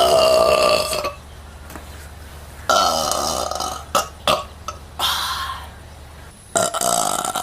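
A woman burping four times. The first two burps are long and loud, about a second each; a shorter, fainter one follows, then another near the end.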